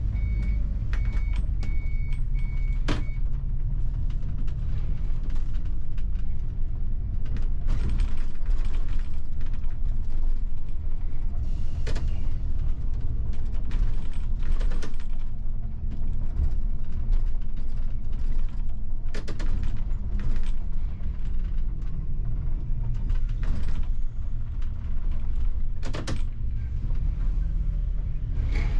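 Bus running, heard from the driver's cab: a steady low engine and road rumble, with rattles and creaks from the cabin. A high electronic beep repeats for the first three seconds.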